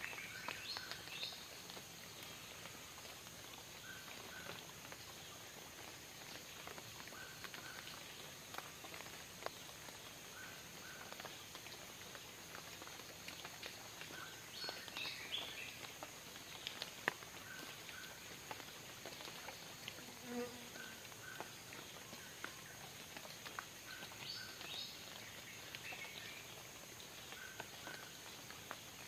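Tropical forest ambience: a steady high insect drone, with a short double note repeating every couple of seconds and a few brief higher calls. Scattered sharp ticks run through it, with light rain falling on the water.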